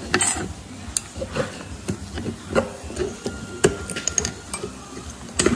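Flat-blade screwdriver prying the metal pad clips out of a Mazda 6 front brake caliper bracket: irregular metallic clicks, scrapes and clinks as the clips are levered loose.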